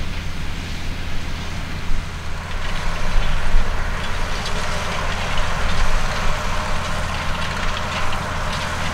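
New Holland T9.560 tractor's six-cylinder diesel engine running steadily under load while pulling a disc harrow through stubble: a low steady drone with a rushing noise and scattered small rattles, getting a little louder about two and a half seconds in.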